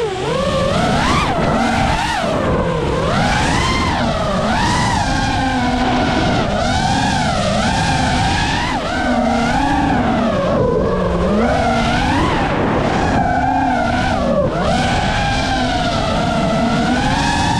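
FPV racing drone's motors and propellers whining, the pitch swooping up and down every second or so as the throttle changes, over a steady rushing noise.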